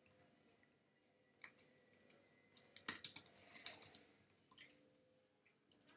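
Faint typing on a computer keyboard: scattered keystrokes, with a quick run of them about three seconds in.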